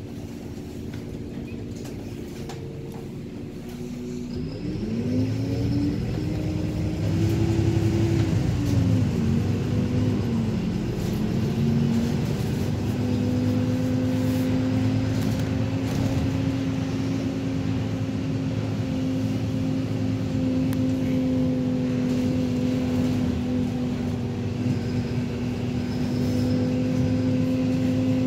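City bus engine heard from inside the cabin: it runs steady and quieter at first, then from about four seconds in the bus pulls away, the engine note climbing and then falling back before it settles into a steady hum as the bus cruises.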